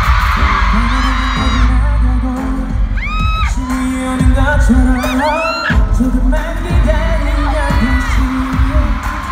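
Live pop music played loud: a male singer sings into a microphone over a bass-heavy backing, with the voice gliding up and down in long held notes.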